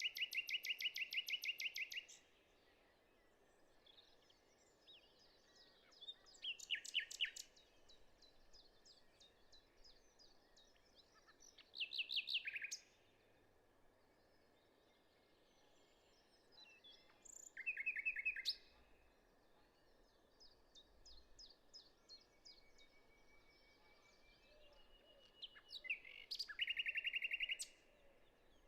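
A songbird singing a fast, evenly pulsed trill, repeated five times about every five or six seconds, with fainter bird chirps in between. A faint steady high tone runs underneath.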